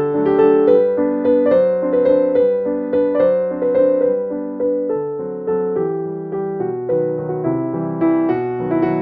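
Background piano music, a gentle melody of struck notes that ring and fade.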